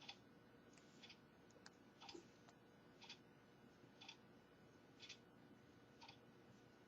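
Near silence with faint, even ticks about once a second and a few softer clicks between them.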